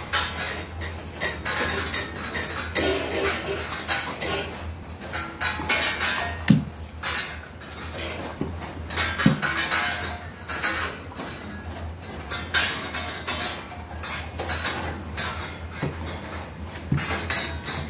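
Dishes and utensils clinking and knocking at irregular intervals, over a steady low hum.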